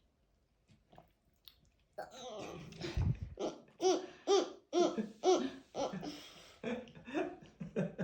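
A young child laughing in a run of short, bouncy bursts that start about two seconds in, with a brief low thump about a second later.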